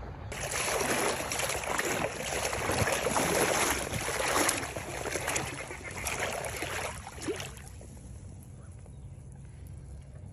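Water sloshing and splashing from someone wading through shallow marsh water, irregular and continuous for about seven seconds, then it stops.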